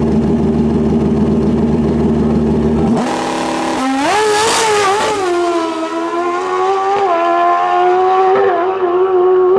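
Drag-racing motorcycle at the start line: a heavy, loud engine rumble, then about four seconds in it launches at full throttle with a brief noisy blast. The engine then holds a steady high-pitched note down the strip, with short dips at gear changes about seven and eight and a half seconds in.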